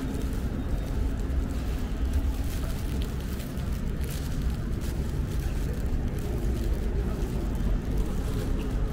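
Busy street ambience: a steady low rumble of road traffic with faint background voices.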